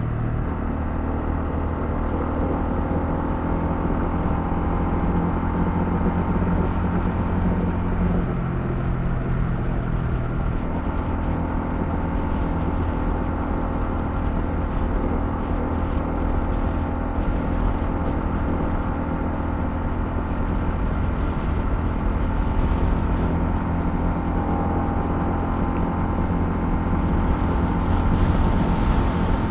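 Honda CL250 motorcycle engine running steadily while riding, its note shifting in pitch about eight and ten seconds in as the revs change.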